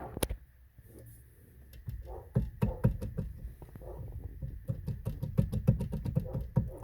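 Ford Fiesta steering wheel and column clunking and rattling in quick, irregular knocks as the wheel is rocked back and forth. The column has abnormal play and a loose part inside.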